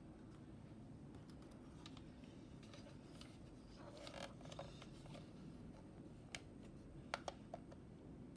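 Faint plastic clicks and handling noise from a DX Chemy Riser toy being turned over and worked by hand, with a few sharper clicks near the end as its orange part is flipped open.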